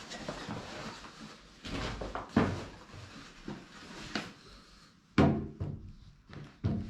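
Handling noises as devices and cables are set down and plugged in to charge: rustling with several knocks and thumps, the loudest about five seconds in.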